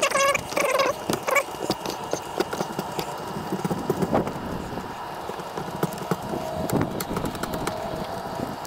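Black electrical tape being worked around the cable run: a short squeal as tape is pulled off the roll at the start, then scattered taps, clicks and rustling of hands pressing and handling the tape.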